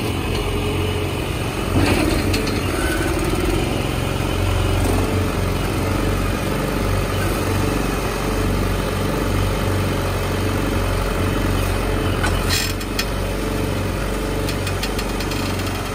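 John Deere 2555 tractor's four-cylinder diesel engine running steadily while its front loader and bale squeeze clamp and lift a plastic-wrapped round bale. A few sharp clicks about three-quarters of the way through.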